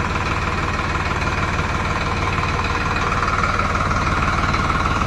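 Farmtrac 60 PowerMaxx tractor's diesel engine running steadily at low revs, with an even beat.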